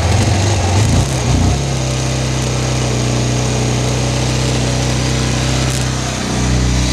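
Bajaj Pulsar 220F's single-cylinder engine running on its first start after a rebuild for engine seizure. The revs are uneven for about the first second and a half, then it settles into a steady idle, and the revs rise briefly near the end.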